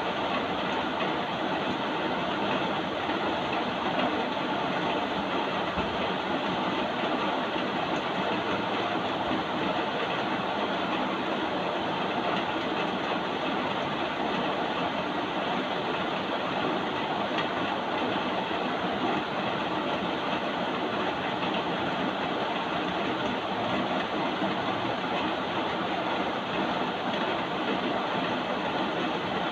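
Steady rain noise, an even rushing hiss with no distinct drops, thunder or other events.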